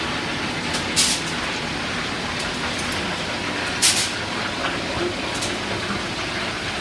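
Steady sizzle of chicken thighs frying in a pan, with two brief, louder crackles about a second in and near four seconds.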